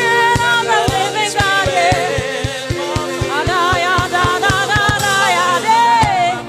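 Gospel worship song: voices singing over steady held keyboard notes, with a low drum beating about three times a second.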